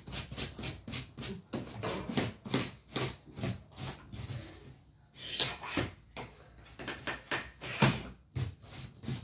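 Rapid, irregular knocks and taps, several a second, with one louder knock near the end, from hands working on a wheeled suitcase and a mop being pushed about a tiled floor.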